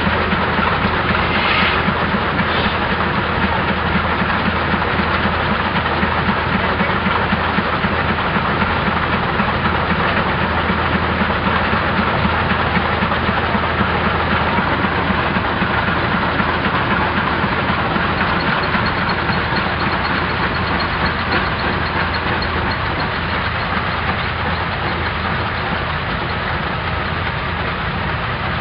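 Antique No. 1 Aurora rock crusher running under belt drive from a steam traction engine, a steady, dense mechanical clatter with a constant low hum underneath.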